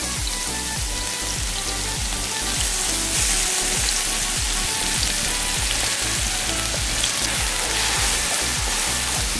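Freshly blended chilli, garlic and candlenut paste frying in hot oil in a wok: a steady, even sizzle as the spice paste is sautéed.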